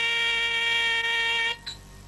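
A wind instrument holds one steady note, which stops abruptly about one and a half seconds in; it is a phrase of Indian instrumental music.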